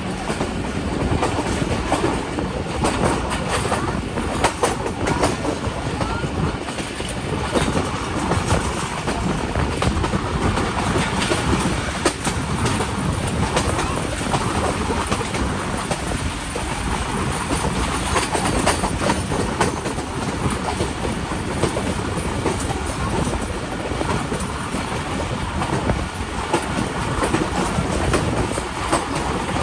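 Passenger coaches of a moving train heard from an open window: steel wheels clacking over the rails in a steady rushing clatter.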